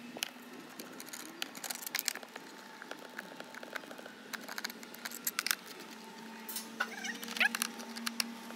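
Screwdriver working the screws out of a lithium e-bike battery pack's case: irregular small clicks and scrapes of the metal tip on the screw heads.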